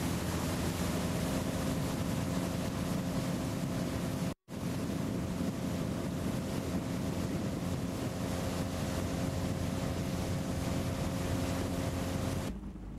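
Towing motorboat's engine running steadily at speed, under a rush of wind and water on the camcorder microphone. The sound drops out completely for an instant about four seconds in, and falls away sharply just before the end.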